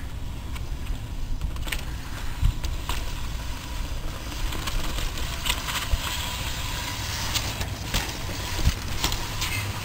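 Steady low rumble of wind buffeting the microphone, with scattered faint clicks and knocks throughout.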